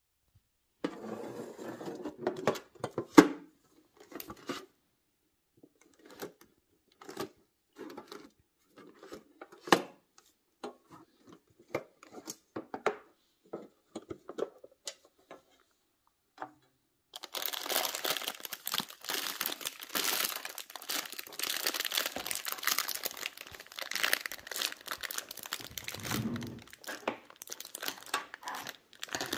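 Handling of a metal biscuit tin and its packaging: scattered taps and rustles with one sharp click about three seconds in, then from about halfway through, continuous crinkling of a clear plastic bag of biscuits being handled.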